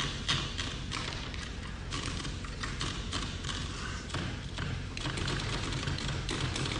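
Keys being typed: a run of irregular, quick clacks over a steady low background hum.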